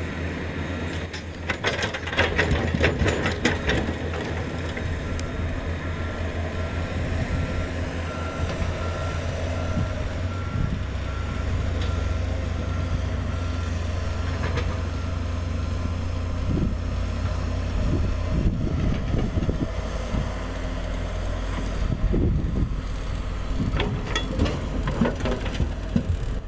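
Komatsu GD555 motor grader's diesel engine running steadily, with a reversing alarm beeping repeatedly for about thirteen seconds in the middle. Bursts of clatter come near the start and again near the end.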